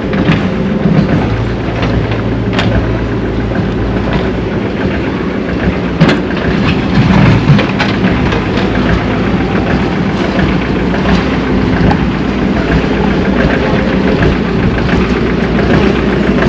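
Engines of heavy road-construction machinery running steadily, with a few sharp knocks.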